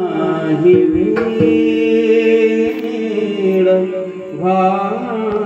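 A male kirtan singer's voice holding long, wordless notes that bend and glide up and down, over a steady drone, with a few sharp percussion strokes.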